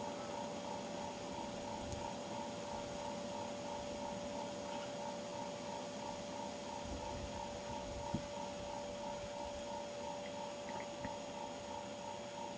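Steady hum with a constant high whine and a fainter pulsing tone above it, about three pulses a second, over a low rumble; one soft tick about eight seconds in.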